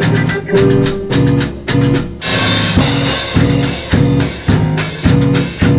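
Improvised trip-hop style jam: a drum kit keeps a steady beat of about two strokes a second over a repeating low riff, with a cymbal wash a little past two seconds in.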